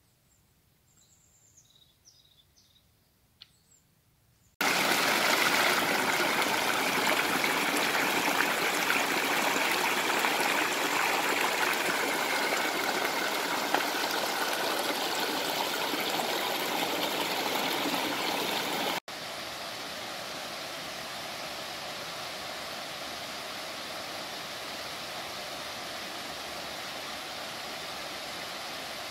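A few faint high chirps over near silence, then, about four and a half seconds in, the loud rush of a mountain stream running over rocks, starting abruptly. About nineteen seconds in it cuts to a quieter, steady rush of water.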